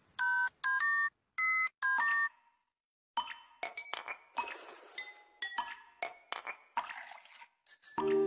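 A run of short electronic two-tone beeps like telephone keypad tones, six of them at changing pitches. After a brief silence comes a string of irregular sharp clicks and clinks with a short ring, and music begins near the end.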